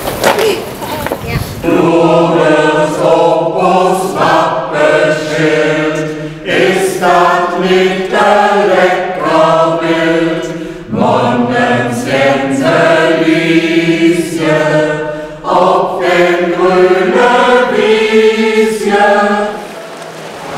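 A choir singing a melody in held notes, starting about two seconds in.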